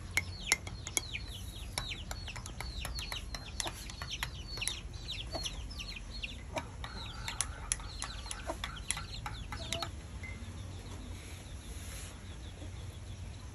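Chicks peeping in a rapid run of short, high falling notes, about three or four a second, mixed with sharp clinks of a metal spoon against a ceramic mug as it stirs. The peeping and clinking fade out about ten seconds in.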